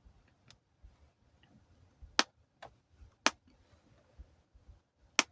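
Sharp clicks, three loud ones about a second apart with fainter ones between, from a screwdriver bit slipping in a laptop screw that won't undo: the wrong size of bit.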